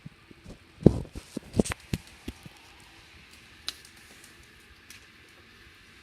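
A quick run of light knocks and clicks, the loudest about a second in, then two single clicks later.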